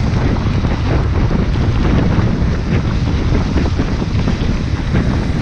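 Wind buffeting an action camera's microphone on a moving mountain bike, a steady low rumble mixed with scattered crackles and rattles from the tyres on the wet dirt track.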